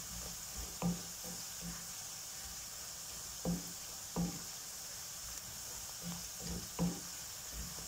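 Oil sizzling in a non-stick pan as a wooden spatula stirs a thick mix of fried ginger, garlic, chillies and chilli powder, the powder frying in the oil. There is a steady hiss, with irregular soft knocks and scrapes of the spatula against the pan every second or two.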